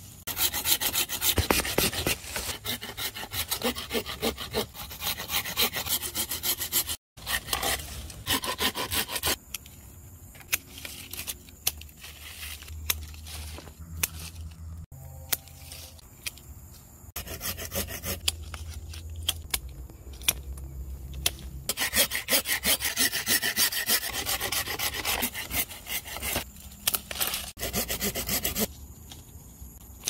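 Hand pruning saw drawn back and forth through a fruit-tree branch, a fast run of rasping strokes on wood. It saws in three spells, with a quieter stretch between about 9 and 17 seconds in, and cuts out for an instant at about 7 seconds.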